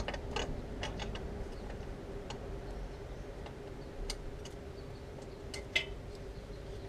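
Scattered light metallic clicks and ticks from hands and tools working at an AJS 125 motorcycle's rear drum brake hub, with one sharper click near the end.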